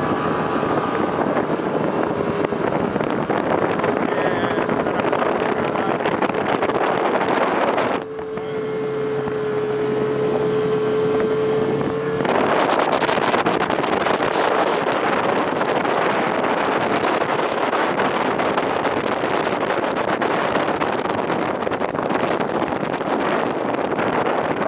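Snowmobile engine running steadily under heavy wind rush on the microphone. Between about 8 and 12 seconds the wind drops away and the engine's steady hum is heard more clearly, before the rush returns.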